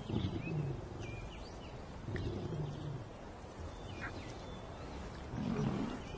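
Lions giving low calls three times, each falling in pitch, with birds chirping in the background.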